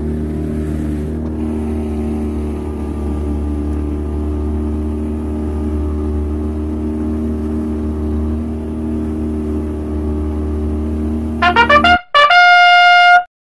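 Outboard motor of a small fishing boat running steadily under way, a low, even hum. About eleven and a half seconds in it gives way to a brass fanfare sound effect: a few quick stabs, then one held trumpet note that cuts off suddenly.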